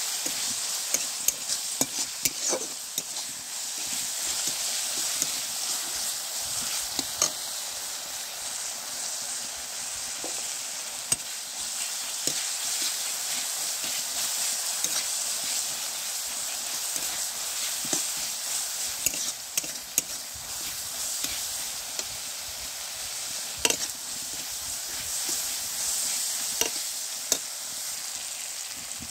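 Chopped onion and tomato sizzling in oil in a black iron kadai, with a steady hiss. A steel spatula stirs them, scraping and clinking against the pan at irregular moments.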